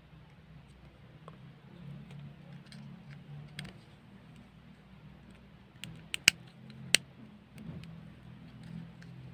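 Small plastic clicks and taps from fingers handling and pressing a red plastic mount adapter against the back of a Xoss G bike computer's plastic case, with a cluster of sharp clicks about two-thirds of the way through, over a low steady hum.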